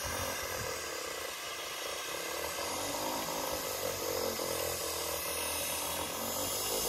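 The 2 hp electric motor of a borewell pump lifting machine running steadily as it turns the drum, hauling the pump's pipe and cable up out of the borewell.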